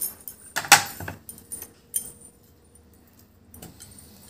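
A hand mixing mashed boiled potato, raw banana and soya chunks in a stainless steel bowl, with a few clinks and rattles against the metal bowl. The loudest comes about a second in, and the mixing is quieter after that.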